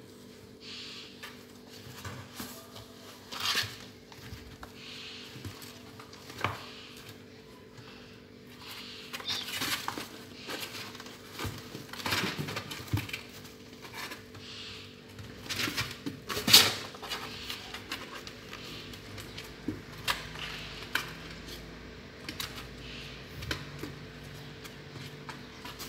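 Cats moving about in and around a cardboard box: scattered scratches, taps and knocks on the cardboard, with a few louder knocks, over a faint steady hum.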